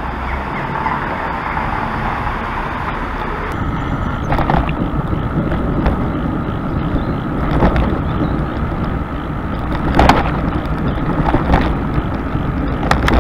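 Steady rush of wind on the microphone and tyre noise from a bicycle being ridden, with a few sharp knocks or rattles from the bike.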